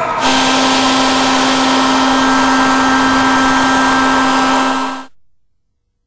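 Vacuum cleaner running at full power: a loud, steady hum over rushing air that cuts off suddenly about five seconds in.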